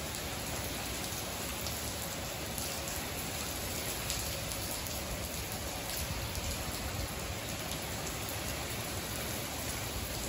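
Strong rain falling steadily on a wet tiled courtyard floor, an even hiss with many single drops ticking on the puddled tiles.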